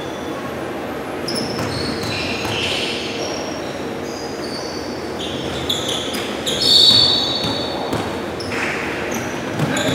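Basketball game on a hardwood gym floor: sneakers squeak again and again and a ball bounces, echoing in a large hall.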